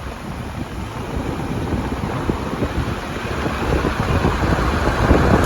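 Car on the move: a steady rumble and hiss of road and wind noise that grows louder through the second half.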